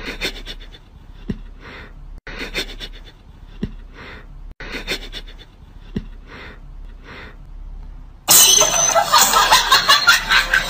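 Domestic cat hissing in short bursts about once a second, then a louder, longer hiss near the end.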